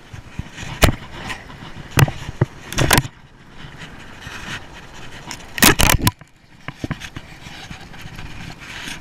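Handling noise from a body-worn camera: sharp knocks and scrapes as it rubs against clothing and gear, at irregular moments, over a steady haze of wind on the microphone.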